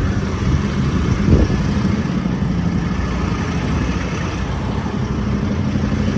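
A truck engine idling steadily, a low even hum, with a dull thump about a second in.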